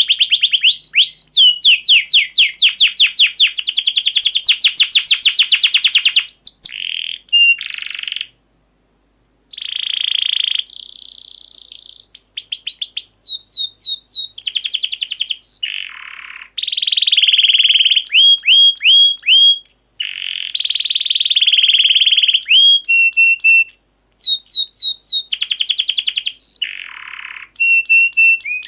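Canary singing: long fast trills and rolls of repeated high whistled notes, with quick sweeping phrases and short pauses between runs. There is a full break of about a second, roughly eight seconds in.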